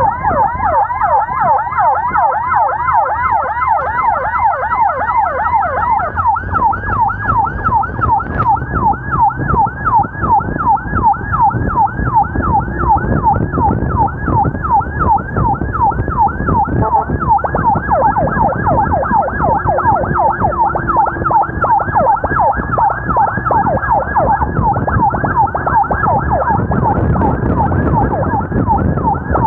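Emergency vehicle siren wailing in a fast yelp, about three to four rising-and-falling sweeps a second, over a steady rumble of engine and road noise.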